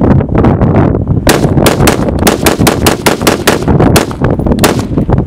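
Rapid gunfire, about fifteen shots in quick succession at four or five a second, starting about a second in and stopping near the end. Heavy wind buffeting on the microphone runs underneath.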